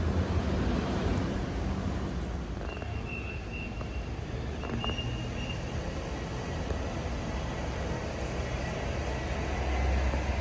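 Steady low vehicle rumble that grows louder near the end, with a few brief high tones in the middle.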